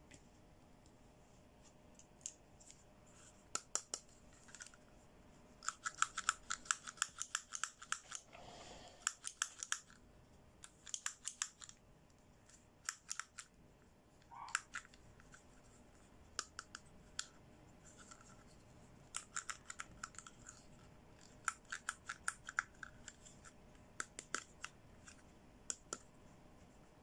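Hard plastic toy accessories handled by hand: quick clusters of clicks and taps as pieces are gripped, set down and fitted together, such as a toy hair dryer's snap-on nozzle. One short squeak about halfway through.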